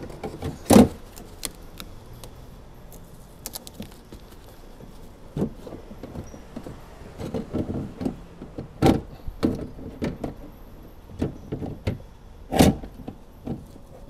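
Irregular clunks, knocks and rattles of metal and plastic parts inside a BMW E90 car door as the old central-locking door latch assembly is worked out past the pulled-forward window regulator. A few sharp knocks stand out, the loudest about a second in and again near the end.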